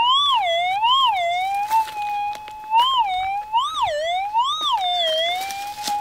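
Metal detector's steady threshold tone, swinging up and then down in pitch five times as the coil is swept over a buried metal target.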